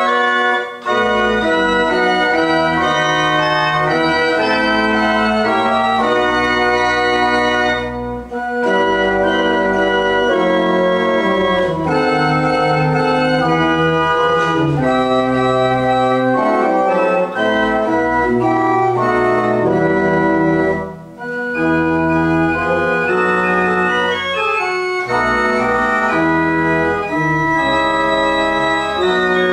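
Pipe organ playing a minuet alone, in held chords that step from note to note. It pauses briefly between phrases about a second in, around eight seconds in and around twenty-one seconds in.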